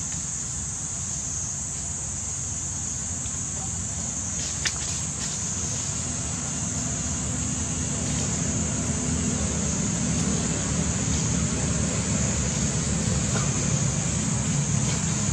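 Steady outdoor ambience: a continuous high-pitched insect drone over a low rumble that swells a little past the middle.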